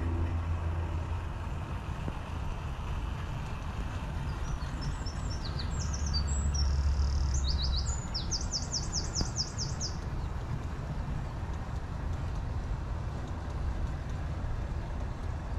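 Low, steady rumble of a passing train, louder for a couple of seconds around the middle. A small bird sings over it from about four seconds in, a run of quick high chirps ending in a rapid trill of repeated notes.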